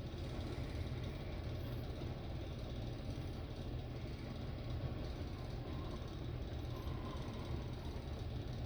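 Ceiling fans coasting down with the power off, a steady low rumble of spinning blades moving air.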